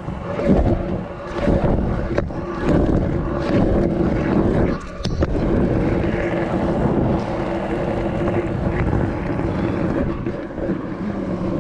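Stunt scooter wheels rolling fast over wet tarmac, with wind buffeting the microphone. A couple of sharp knocks come in the first half, and a steady hum from the rolling holds through the second half.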